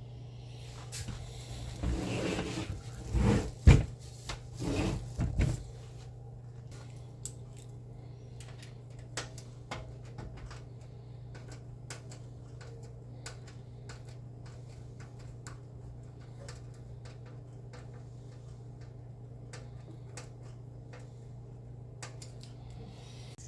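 Hardware being handled and fitted into a PC case: a few seconds of rubbing and knocks, the sharpest knock about four seconds in, then scattered light clicks and ticks over a steady low hum.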